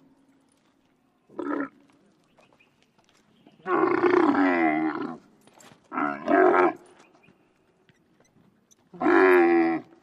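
Four deep roaring animal calls with a bending pitch, offered as the voice of Camelops, an extinct camel. The first is short, the second long, the third comes in two parts, and the last falls near the end.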